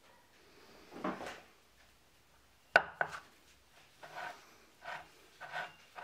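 Aluminium coffee-maker parts handled and set down on a tabletop. A rustle comes about a second in, then a sharp clink just under three seconds in, the loudest sound. After it come several lighter knocks and scrapes about every half second.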